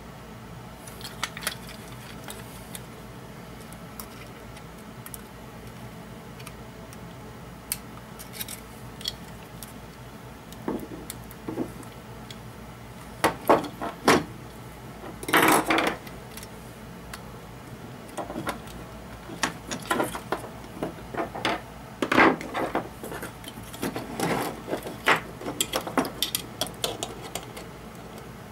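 Handling noise from an opened guitar effects pedal and a small metal tool: scattered clicks, taps and light clinks as the housing and circuit board are turned and probed, sparse at first and busier in the second half, with one longer scrape about halfway.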